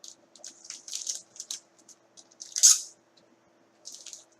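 Trading card packs and cards being handled: short crinkling and rustling, with a louder crinkle about two and a half seconds in.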